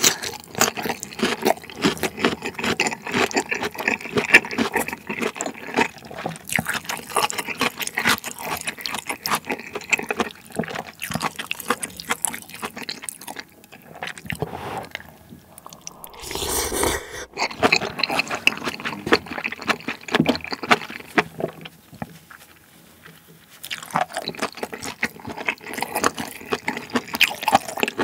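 Close-miked wet slurping and chewing of spicy malatang: glass noodles and soup-soaked toppings sucked up and mashed with smacking and clicks, with one louder, longer slurp about sixteen seconds in.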